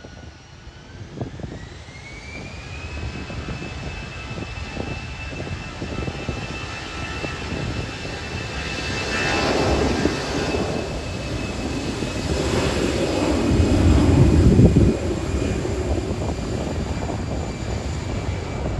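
Jet airliner flying past, its engines' high whine rising in pitch early on and the roar building to a peak about three-quarters of the way through before easing slightly.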